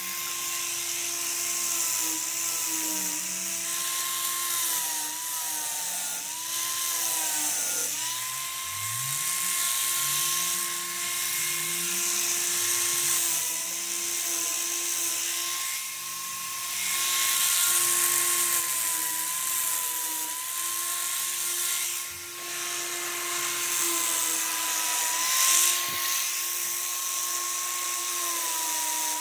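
High-speed grinder cutting metal: a steady whine over a hiss of grinding, its pitch dipping now and then as the wheel bites under load, with a couple of brief knocks in the second half.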